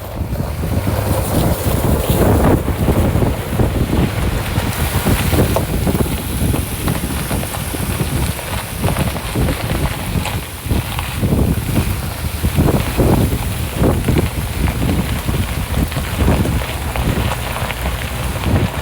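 Wind buffeting the microphone over the low rumble of a vehicle driving off-road, with many irregular short thumps.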